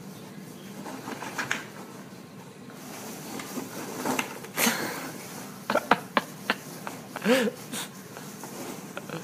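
Foam packing peanuts rustling and crackling against each other and the cardboard box as a small dog burrows through them. The sharp crackles and scratches come thickest in the second half, with a brief voice-like sound about seven seconds in.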